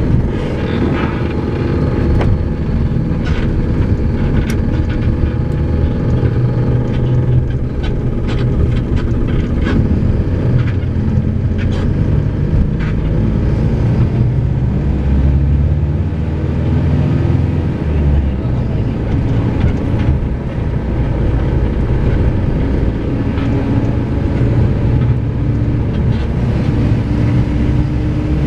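Mercedes-Benz OF-1722 bus's front-mounted diesel engine running under way, heard from inside the cabin as a loud, steady low drone. The engine note climbs near the end as the bus picks up speed, and there are scattered light clicks and rattles.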